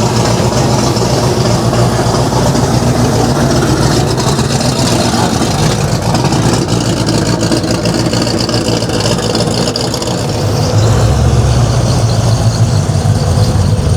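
A car engine idling steadily, getting louder about eleven seconds in.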